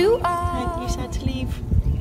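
Background song with a singer holding the last words of a line, the vocal fading out after about a second over low, uneven noise.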